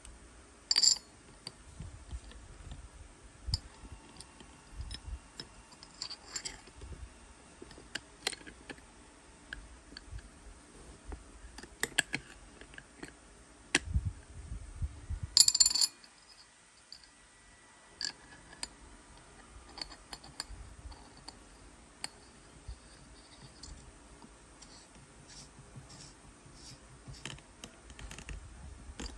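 Scattered clicks and light metallic taps of small steel parts: an arbor bolt, a hex key and the blade guard handled while a 3-inch cut-off wheel is mounted on a DeWalt DCS438 cordless cut-off tool. The loudest clatters come about a second in and again about halfway through.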